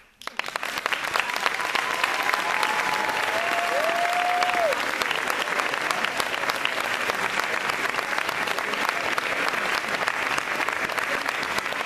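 Audience applauding: many hands clapping in a dense, steady patter that starts abruptly just after the beginning.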